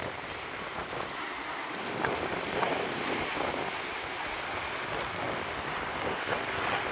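Steady hiss of surf washing on the beach, mixed with wind, swelling slightly now and then.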